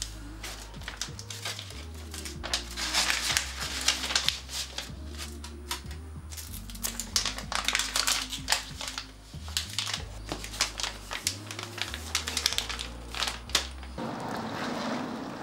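Dramatic background score: a low bass line stepping between notes under sharp, crackling percussive ticks. Near the end the music drops out and a soft street ambience takes over.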